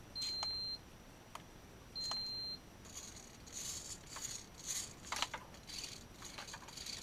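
Two long, steady electronic beeps of the same high pitch, about a second and a half apart, from the radio-control gear, followed by faint clicks and rustles of handling.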